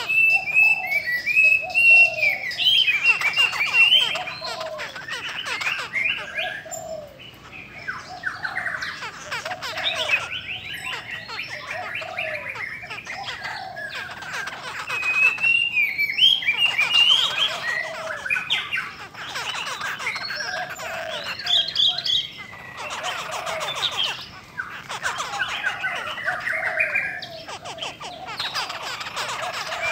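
Several caged black-throated laughingthrushes (khướu da bò) singing loudly and almost without pause: fast, twisting whistled phrases and chatter over shorter, lower notes, in bouts broken by brief pauses, a female among them rousing the males to sing.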